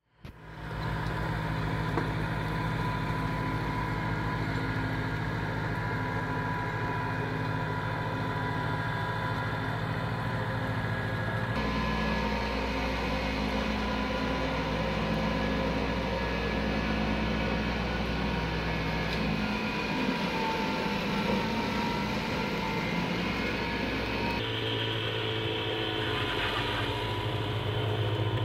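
Iseki compact tractor's engine running steadily under load while its front-mounted snow blower chews through and throws snow. The sound changes abruptly twice, about a third and four-fifths of the way through.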